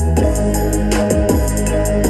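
Music with heavy bass and a regular drum beat playing through a Zealot portable Bluetooth speaker.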